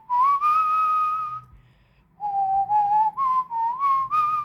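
A whistled tune: one long held note, a short pause, then a phrase of shorter notes moving up and down.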